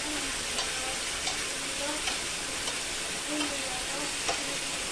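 Chicken pieces sizzling in hot oil in a frying pan while being turned with a utensil, with scattered light taps and scrapes against the pan. The steady sizzle is the chicken's released water cooking off.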